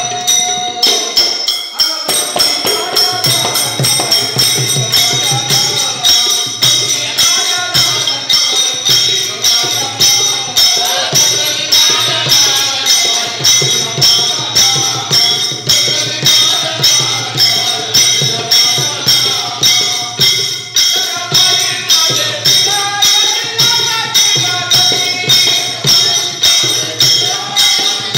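A man sings into a microphone, accompanied by a double-headed barrel drum and small hand cymbals. The cymbals strike a steady, ringing beat.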